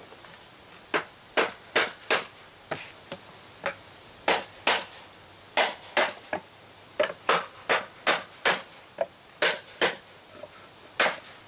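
Hammer striking a wooden block laid on the finger joints of a pine beehive deep box, tapping the joints together: about twenty sharp knocks in uneven groups, starting about a second in.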